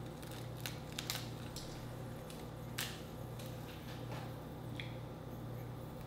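Crisp clicks and cracks of a grilled shrimp's shell being peeled off by hand, sharpest about a second in and again near three seconds, with a few fainter ticks later, over a steady low hum.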